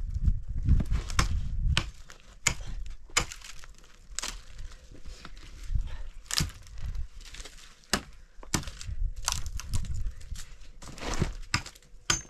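Irregular crunches, scrapes and sharp knocks of a man working on dry, stony ground: footsteps in loose dirt and gravel and dry branches being handled and dragged. A low rumble runs under the first couple of seconds.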